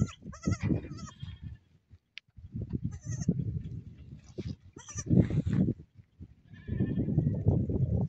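Goats bleating, about four wavering, quavering bleats a second or two apart.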